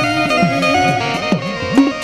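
Instrumental break in Gujarati dakla devotional music: the dakla drum beats about four pitch-bending strokes a second under held melody notes from a stringed instrument.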